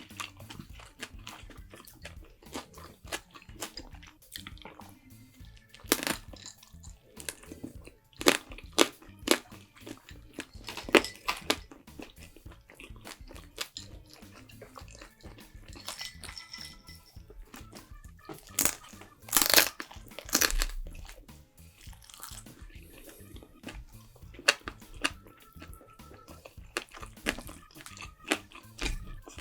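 Close-up eating sounds: chewing with sharp, irregular crunching bites, the loudest cluster about two-thirds of the way through. Faint background music runs underneath.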